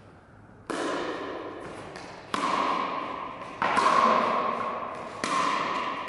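Pickleball rally: four sharp pops of paddles hitting the ball, about a second and a half apart, each one ringing on in the echo of a large hall.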